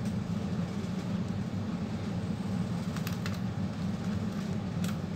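Steady low hum throughout, with a few light clicks of a screwdriver and tools on a laptop's metal and plastic casing, about three seconds in and again near the end.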